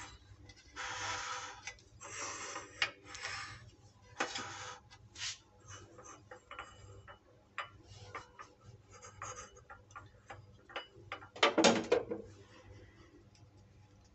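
A cupcake in its paper liner being cut with a knife on a plate. There are short bursts of rustling in the first few seconds, then a run of small clicks of the knife against the plate, and a louder rustle near the end.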